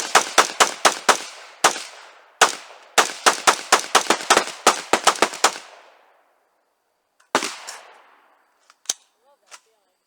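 Gunshots fired in quick strings, about five a second, broken by a couple of single shots. A last lone shot comes near the middle, followed by a few faint clicks.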